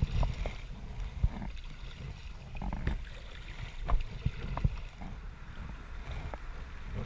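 Kayak paddling: paddle blades splashing through the water with irregular knocks, about one a second, over a steady low rumble.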